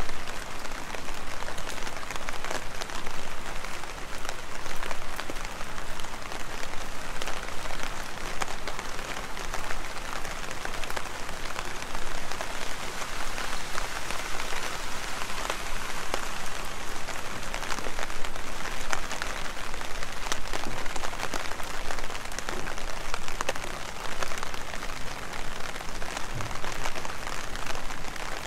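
Heavy rain falling steadily, with a dense patter of individual drops hitting close by.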